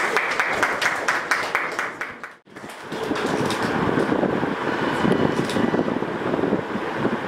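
Audience clapping, dense and steady, cut off abruptly about two and a half seconds in. After the cut comes a steady, lower-pitched crowd noise from a room full of people.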